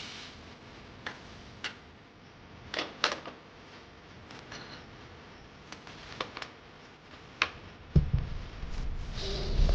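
Scattered light clicks and taps of parts and tools being handled, then a dull thump about eight seconds in followed by low handling rumble.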